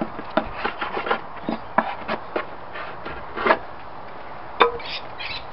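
Short, irregular scrapes of a hand tool against a timber panel, chipping off dried excess glue, with a sharper tap about four and a half seconds in.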